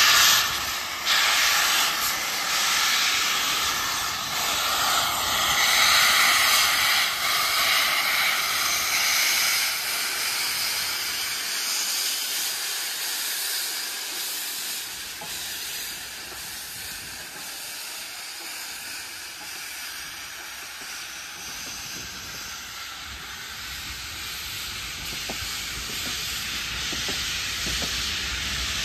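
Loud hiss of steam from Bulleid Battle of Britain class pacific 34067 Tangmere as it pulls out, the steam billowing from around its cylinders. The hiss is loudest at first and fades as the engine draws away, and a low rumble of the coaches rolling past grows near the end.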